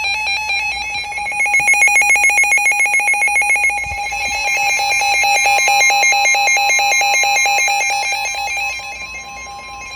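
Emergency Alert System attention tone on weather radio: a loud, steady, piercing electronic two-tone alarm announcing a severe thunderstorm warning. A second, slightly higher tone joins about five seconds in.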